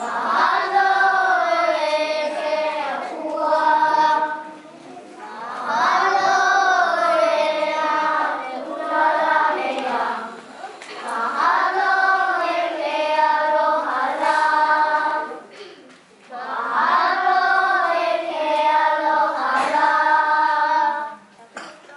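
A group of young children singing together unaccompanied, in four phrases of about four seconds each with short breaks between them; the singing stops about a second before the end.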